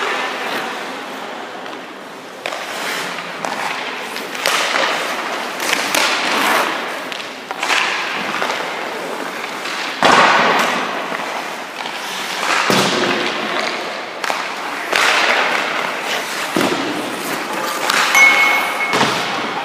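Ice skate blades scraping and carving across rink ice in repeated swishes, with several sharp knocks from pucks or sticks.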